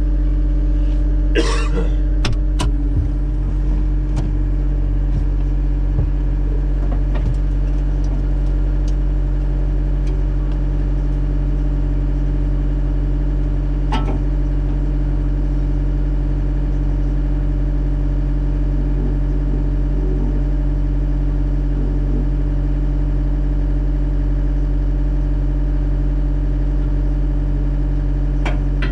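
John Deere 333G skid steer's diesel engine running steadily, a low, evenly pulsing drone. A few short clicks and knocks sound over it, a couple about two seconds in and one about halfway.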